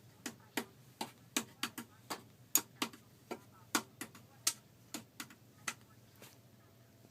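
A string of about fifteen sharp mouth or tongue clicks, irregularly spaced two or three a second, stopping about six seconds in.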